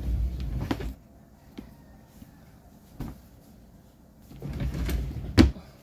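Laminate under-bed storage drawer sliding on its runners with a low rumble and a few clicks, then sliding again and ending in a sharp knock about five seconds in.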